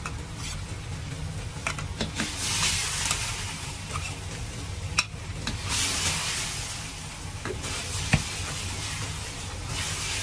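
Sauce sizzling in a hot wok over a gas wok burner that runs with a steady low rumble. The hiss swells twice, about two and six seconds in, as the wok flares, and a ladle clanks sharply against the wok a few times.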